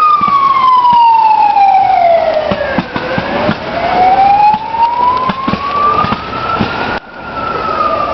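A wailing siren, falling slowly in pitch for about three seconds and then rising again for about four, with scattered firework pops beneath it. The sound breaks off abruptly about seven seconds in and comes back falling.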